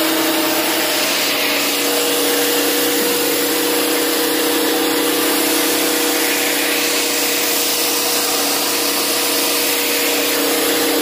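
Electric mini rice mill running under load and milling rice: a loud, steady whirr with an even hum underneath.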